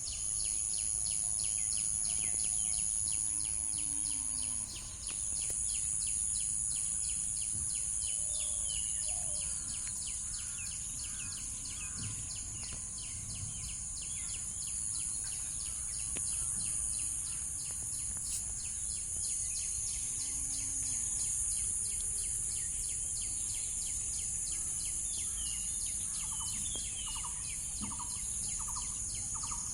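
Insect chorus: a steady high-pitched drone with a fast, even pulsing beneath it, and a few short bird chirps scattered through.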